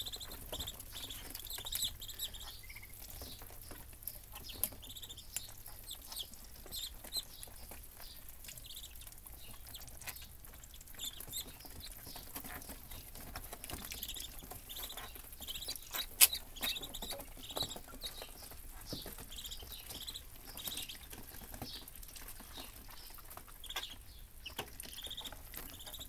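A flock of Muscovy ducklings peeping in many short, high calls, with scattered small taps of bills and feet around their water dish and one sharp click about sixteen seconds in.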